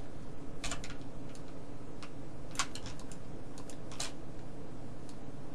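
A handful of irregular sharp clicks from a computer mouse and keyboard, the loudest about two and a half and four seconds in, over a steady low background hum.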